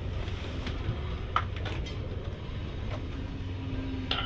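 Steady low background rumble with a few light clicks.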